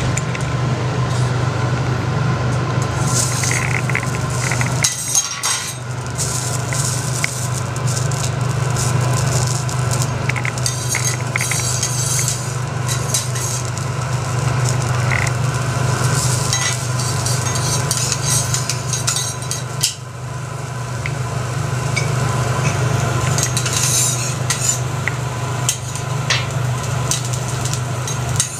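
Metal utensils clinking and scraping as salad is tossed and a spatula works the hot teppanyaki griddle, with butter sizzling on the steel plate. A steady low hum is heard behind it.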